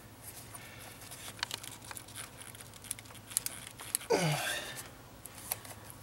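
Hands working plastic push-tab clips and rubber hoses loose from an engine's fuel-rail wiring, with scattered small clicks and rustles. About four seconds in there is a short squeal that falls in pitch.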